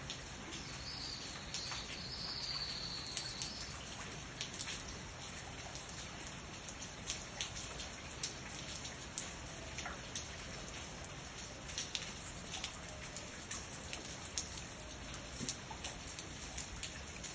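Steady rain hiss with scattered sharp drop ticks at irregular intervals.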